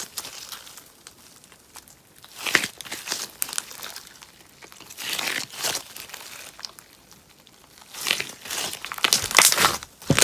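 Sponge slime crackling and popping as it is worked, in several separate bursts with short pauses between.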